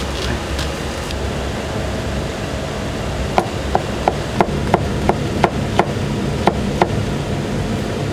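Knife chopping on a cutting board: about a dozen sharp taps, roughly three a second, starting a few seconds in, over a steady low kitchen hum.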